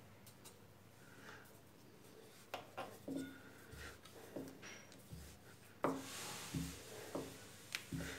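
Wooden rolling pin rolling out small gol gappe dough rounds on a stone counter: faint rubbing with irregular knocks of the wood against the stone. The knocks start a couple of seconds in, and the loudest comes about six seconds in.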